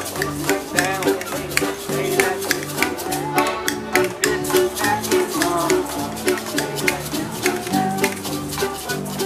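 Live acoustic band playing an upbeat old-time country tune: accordion, upright bass and electric bass laying down an alternating two-note bass line, with musical saws gliding in pitch over the top and a steady clicking beat.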